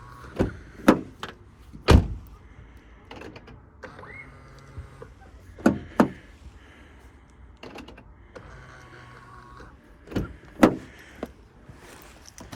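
Ford Mondeo mk4 central locking being tried on a freshly fitted door lock. Three times, an electric motor whirs for a second or two and is followed by two or three sharp clunks.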